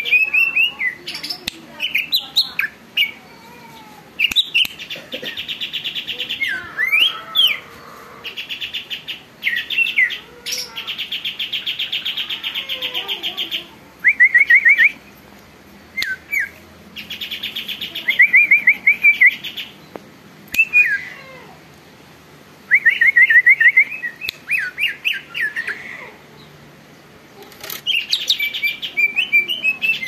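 Caged leafbird (cucak ijo) singing steadily in a loud, varied song: rapid buzzy trills alternating with quick runs of slurred, up-and-down whistled notes, with short pauses between phrases.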